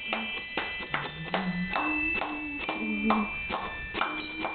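Santa's Marching Band toy bells playing a Christmas tune, with rapid strikes about four a second that each leave a bright ringing tone, over a lower stepping melody.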